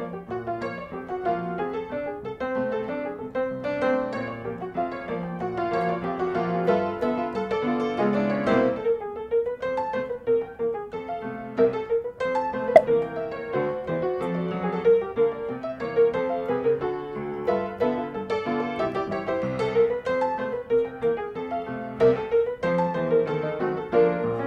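Background piano music with a steady run of notes.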